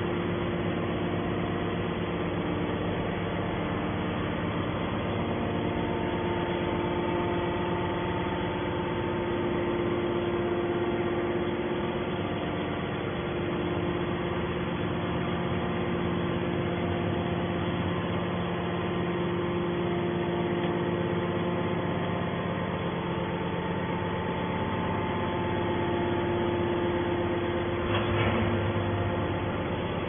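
Hydraulic scrap metal baler's power unit running with a steady hum and several held tones. A brief louder noise comes near the end.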